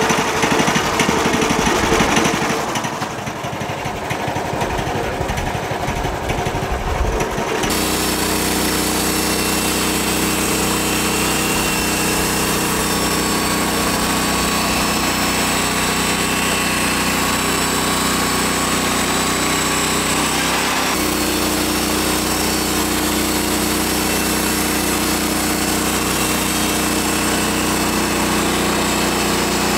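Small gasoline engine of a Harbor Freight band sawmill running steadily under load as the band blade cuts through a black walnut log. The sound changes abruptly about eight seconds in, then runs on evenly.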